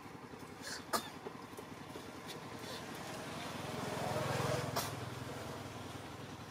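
A motor vehicle passing by: a low engine hum that builds from about three seconds in, peaks a little after four seconds and fades again. A couple of faint sharp clicks, one about a second in.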